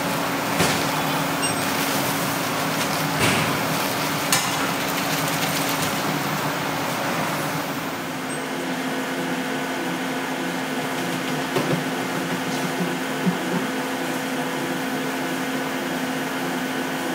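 Steady hum of factory machinery, with a few short knocks and clicks.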